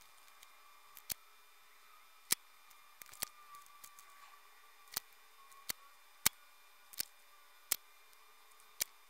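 About ten sharp, small clicks at uneven intervals, from tweezers and a soldering iron being handled and tapped against the workbench, over a faint steady hum.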